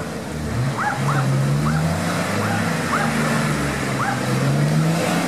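Nissan Patrol GR's engine revving up and down under load as the 4x4 pushes through deep mud, its pitch rising, holding and dropping several times.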